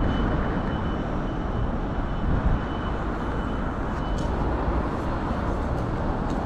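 Steady outdoor street noise with a low rumble, as from traffic. A faint, thin high tone comes and goes through the first four seconds, and there are a few light clicks near the end.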